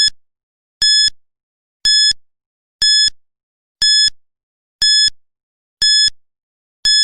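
Countdown timer sound effect: a short electronic beep once every second, each a bright high tone that cuts in sharply and fades quickly.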